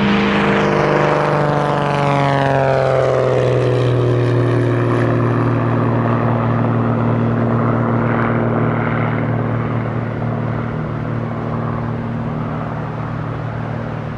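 Light propeller aircraft's engine passing close by on its takeoff run, its pitch dropping as it goes past, then droning steadily and slowly fading as it moves away.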